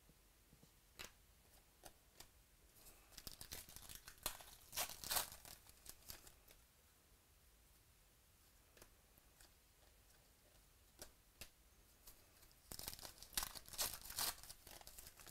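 Quiet rustling and tearing of a foil trading-card pack wrapper being opened and crinkled, in two bouts: one from about three to six seconds in and one near the end. A few light clicks of cards being handled come before the first bout.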